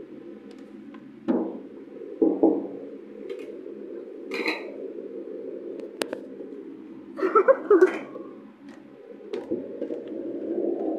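Knocks and bumps from a door and the phone being handled, with two louder thumps a little over a second and about two seconds in and scattered clicks, over a steady low hum.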